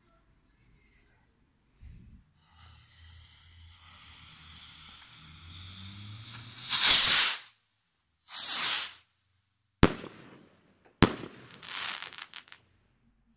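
Firework rocket: a hiss builds for several seconds as the fuse burns, then two loud whooshes as it goes up. Two sharp bangs follow about a second apart, the second trailed by crackling.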